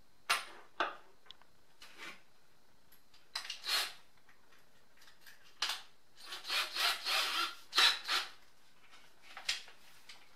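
Handling noises as a drill bit is picked out and fitted into a cordless drill's chuck: short, irregular scraping and rubbing sounds, busiest about six to eight seconds in. The drill motor is not running.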